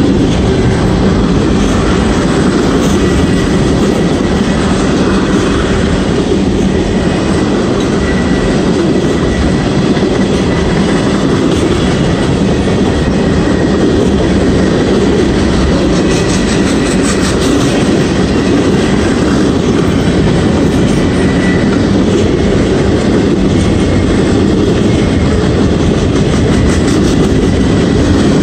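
Freight train cars (tank cars and covered hoppers) rolling past close by: a loud, steady rumble with the clatter of steel wheels on the rails, a run of quick wheel clicks partway through, and a faint thin wheel squeal at times.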